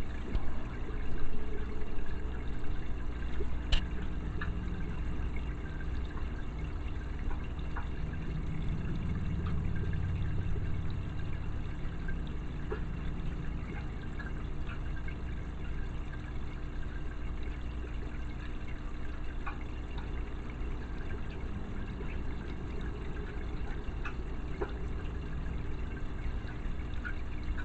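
Small submersible aquarium power filter running in a tiny tank, its outflow moving the water with a steady trickling, pouring sound. A few faint clicks sound over it.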